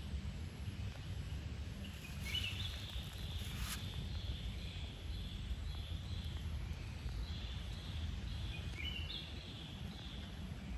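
Outdoor ambience: a steady low rumble with birds chirping over it, with short rising calls about two seconds in and again near the end.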